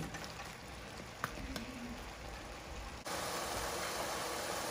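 Frying pan of bok choy and onions cooking in oil, a soft sizzling hiss, with a wooden spoon clacking against the pan about a second in. About three seconds in the hiss jumps suddenly louder and stays steady.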